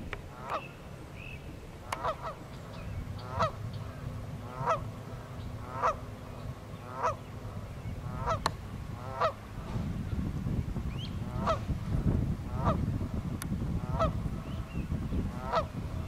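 Canada goose honking in a steady series, about one honk every second or so, over a low rumble that grows louder partway through.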